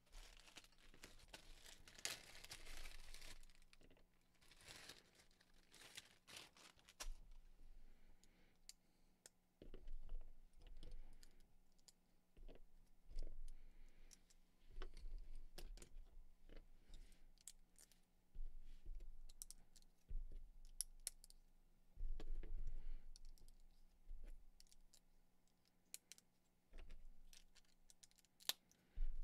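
Small plastic Lego pieces clicking and snapping as they are pressed together by hand, in irregular light clicks, with short bursts of pieces rattling and sliding across the desk.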